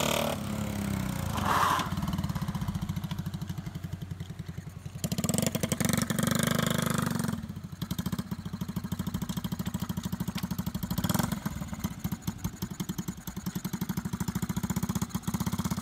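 1970 Honda Z50 mini trail's small four-stroke single-cylinder engine, ridden under throttle, louder in the middle, with a brief blip about eleven seconds in. It then settles into a steady, even idle near the end, idling very nicely.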